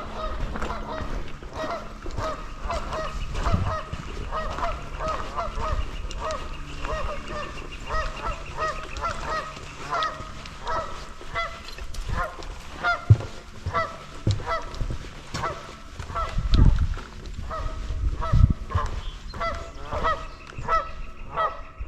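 A flock of geese honking, many short calls overlapping continuously, with a few low thumps mixed in.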